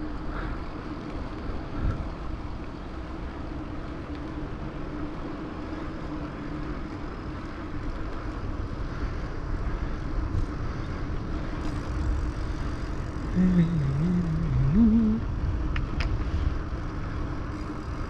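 Wind rushing over the microphone with tyre and road noise from a Raleigh Redux bicycle being ridden, plus a faint steady hum. A short wavering pitched sound comes about three-quarters of the way through.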